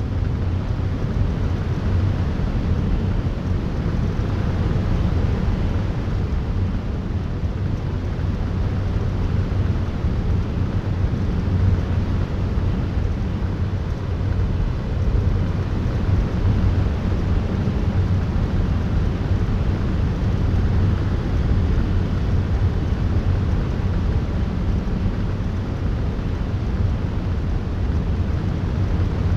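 A steady, dense low rumble of noise with a faint low hum inside it, unchanging throughout and without distinct events.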